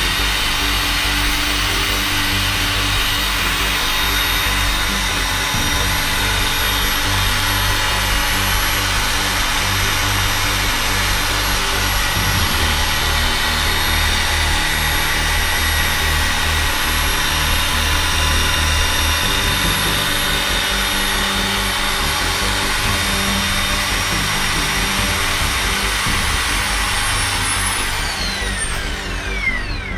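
Radio-controlled helicopter mechanics on an Align chassis running with no rotor blades fitted: a steady whine from the motor and gear drive with the spinning rotor head. Near the end every tone slides down together as the rotor head spins down.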